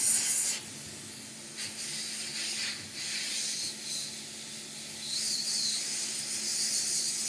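Hot air rework station blowing through a small nozzle, a steady hiss, heating hot glue onto a laptop hinge's metal mount. A faint steady hum lies under it. The hiss drops in level under a second in and swells again about five seconds in.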